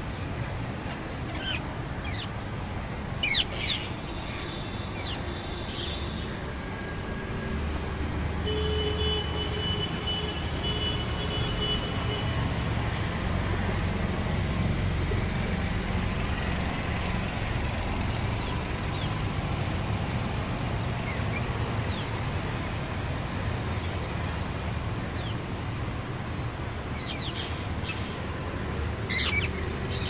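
Steady low hum of city traffic with sharp, screechy calls of rose-ringed parakeets, loudest about three seconds in and again near the end.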